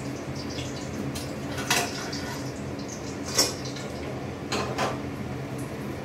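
Metal kitchenware clinking: about four short, sharp clinks of steel utensils against pots and pans, the loudest about halfway through, over a steady low hum.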